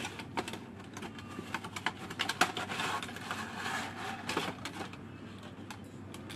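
A cardboard box and its plastic inner tray being handled and opened: irregular small clicks, taps and scrapes as the black plastic tray slides out of the box.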